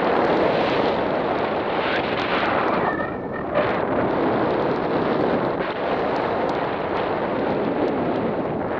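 Airflow buffeting the microphone in flight: a loud, steady rush of wind noise with a brief dip about three seconds in.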